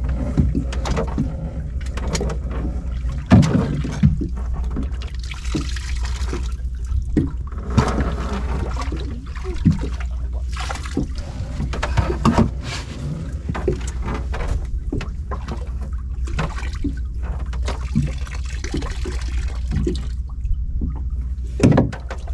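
Seawater trickling and splashing, with irregular sharp knocks, as a line of shell octopus traps is hauled up and handled. A steady low rumble runs underneath.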